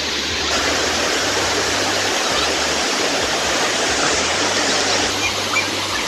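Water rushing steadily down a waterfall, pouring and splashing over sloping rock slabs.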